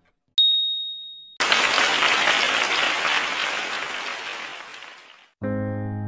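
Quiz-timer sound effects: a single high ding as the countdown hits zero, then a burst of recorded applause that fades away over about four seconds. Soft piano music comes in near the end.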